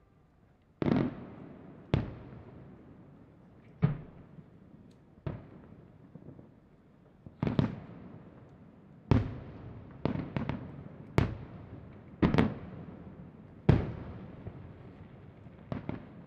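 Aerial firework shells bursting: about a dozen sharp bangs at irregular intervals, some in quick pairs, each trailing off in a rolling echo.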